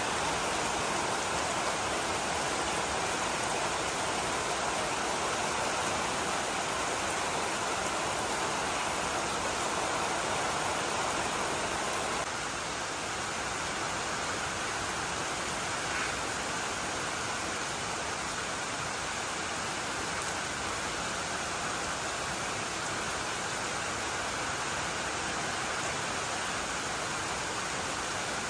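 Rain falling steadily, an even hiss; it drops a little in level about twelve seconds in.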